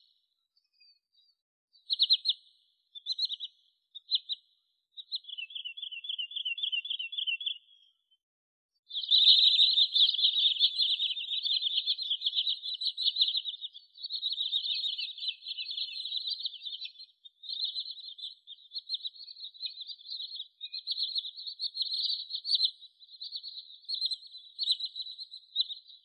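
Sandpiper calling: a few short sharp call notes, then a trill that falls slightly in pitch, and from about nine seconds in a long, rapid chattering trill of high notes, loudest at its start.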